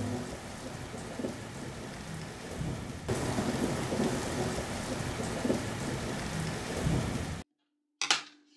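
Steady rain falling, growing louder about three seconds in and then cutting off suddenly near the end; a single short knock follows.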